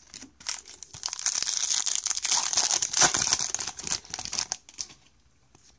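Foil wrapper of a Topps baseball card pack crinkling and tearing as it is ripped open by hand, a dense crackle that starts about half a second in and dies away after about four seconds.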